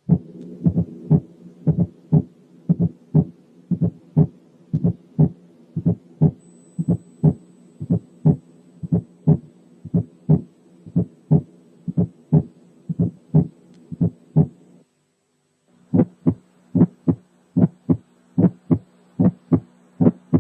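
Recorded heart sounds played through a stethoscope recording, two cases one after the other. First comes a regular heartbeat in which a soft, low-pitched fourth heart sound falls just before each first heart sound, over a faint steady hum. After a short break about 15 seconds in, a second heartbeat follows in which the first heart sound is followed by an ejection click, higher in pitch and clicky.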